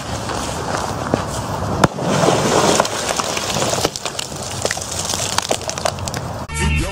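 A firework goes off under frozen pond ice about two seconds in, a single sharp bang, followed by about a second of dense hiss as water and broken ice are thrown up. A steady hiss with scattered small clicks runs under it, and music cuts in near the end.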